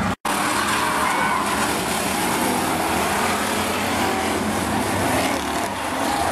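Engines of demolition race cars running around the track, mixed with spectators' voices. The sound cuts out for a moment just after the start.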